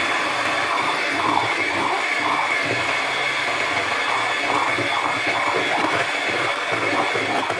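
Electric hand mixer running steadily, its twin beaters whisking a cream and condensed-milk mixture, with a steady high-pitched motor whine.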